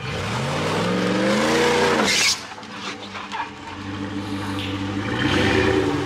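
Jeep Gladiator engine revving as the truck crawls up a rock ledge. The pitch climbs for about two seconds, then drops suddenly as the throttle is released, with a short scrape at that moment. The engine revs up again near the end.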